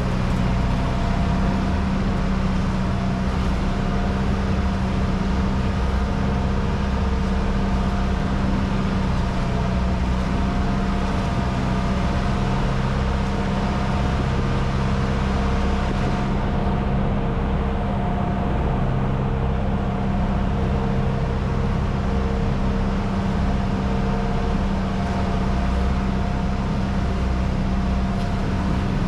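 Passenger boat's engine running steadily at constant speed during the sea crossing, with a hiss over it that eases about halfway through.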